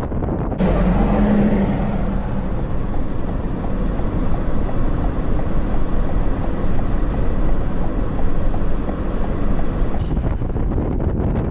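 Steady vehicle and road rumble mixed with blizzard wind on the microphone, with a brief low steady tone about half a second in.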